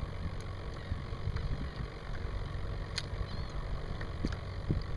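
Wind buffeting the microphone: a low, uneven rumble, with a single sharp click about three seconds in.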